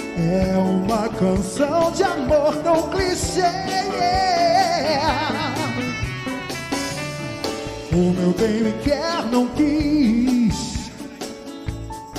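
Live big band with horns, drum kit and percussion playing a Brazilian pop medley, with voices singing long notes in vibrato over the band.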